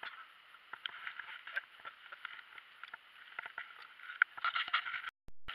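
Handling noise in a plastic kayak: irregular light clicks and knocks from a fish and gear being handled, busiest about four and a half seconds in. The sound cuts out briefly near the end.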